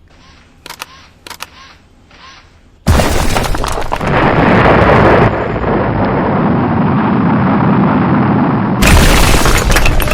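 Film action sound effects from the robot battle: a few faint clicks, then about three seconds in a sudden, very loud boom of crashing noise. It rumbles on for several seconds, with another loud blast near the end.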